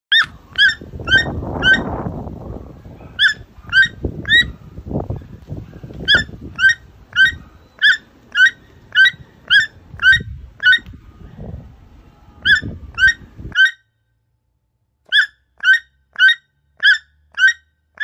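Keel-billed toucan calling: a long series of short, repeated calls, about two a second, in runs broken by brief pauses. Rustling background noise runs under the calls and cuts off suddenly about three-quarters of the way through, while the calls continue.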